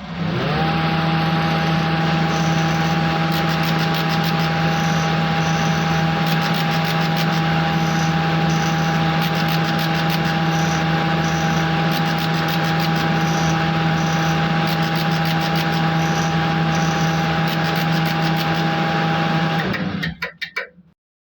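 CNC router spindle speeding up quickly at the start, then running at a steady pitch over a rough hiss from the bit cutting; it shuts off near the end.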